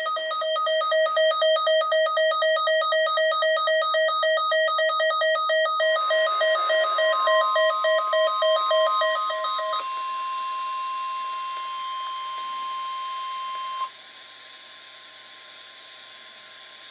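Weather radio alert tones. A loud, rapidly pulsing alarm beep sounds for about ten seconds. About six seconds in, the steady NOAA Weather Radio warning alarm tone joins it. That tone carries on alone after the beeping stops and drops to a quieter level about fourteen seconds in. Together they signal a warning about to be broadcast.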